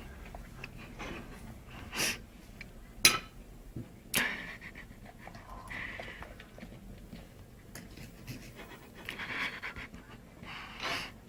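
A dog panting in uneven breaths, with two sharp clicks about three and four seconds in.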